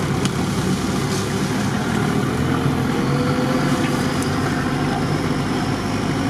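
4x4 off-road vehicle's engine running steadily as it crawls along a rough forest track, with a few faint clicks over it.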